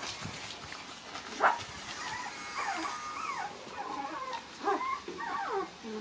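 Young puppies whimpering and yipping: a sharp yelp about a second and a half in, then a run of short, high, squeaky whines that rise and fall in pitch.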